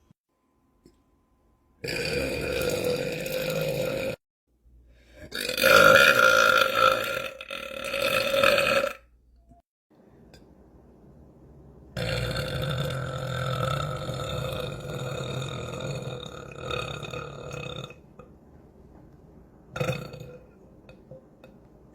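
A man belching deliberately: a drawn-out burp of about two seconds, then a louder one of about four seconds, then a very long one of about six seconds, and a short burp near the end.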